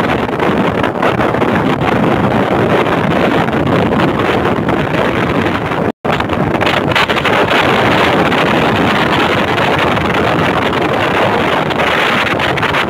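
Typhoon-force wind buffeting the phone's microphone in a loud, continuous rush, over the sound of rough surf. The sound cuts out for an instant about six seconds in.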